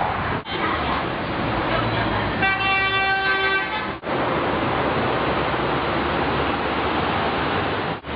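Steady city road traffic noise of cars and trucks, with a vehicle horn sounding once for a little over a second about two and a half seconds in. The traffic sound drops out briefly twice.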